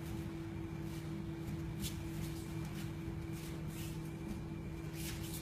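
Quiet room tone with a steady low hum and a few faint ticks.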